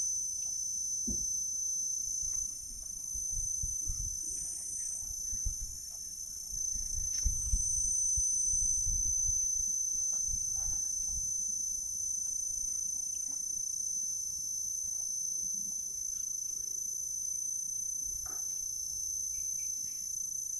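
Steady, high-pitched insect chorus, with a low rumble on the microphone that is strongest in the first half.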